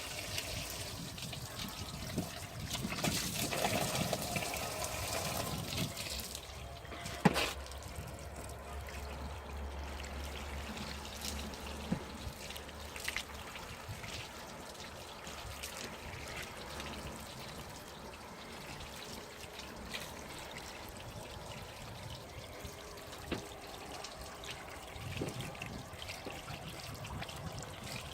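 Water pouring and trickling over a car's ceramic-coated bodywork and water-repellent-treated glass, running off the slick surfaces. It is heavier for a few seconds near the start, and there is one sharp knock about seven seconds in.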